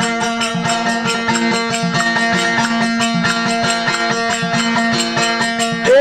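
Instrumental interlude of a Marwari desi bhajan: a desi veena struck in a steady, quick rhythm, its held drone tones ringing under the strokes. No singing until the voice comes back right at the end.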